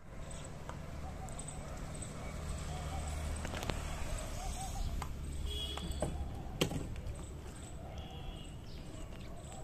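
Rottweiler chewing and gnawing on a dry wooden stick, with a few sharp cracks of wood, the loudest about two-thirds of the way through. Short bird chirps and a low steady rumble in the background.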